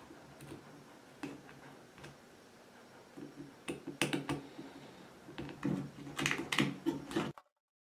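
Hard plastic parts of a small electric paper shredder clicking and knocking as they are handled and fitted together, with a few quick clicks about four seconds in and a busier run of clicks near the end. The sound cuts off abruptly shortly before the end.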